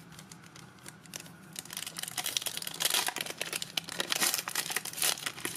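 A trading-card pack wrapper being torn open and crinkled by hand. The crinkling starts about a second and a half in, a dense run of small crackles and rips.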